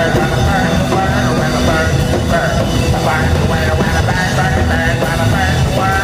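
Live rock band playing loud and steady: electric guitars over a drum kit, heard through the venue's PA from the crowd.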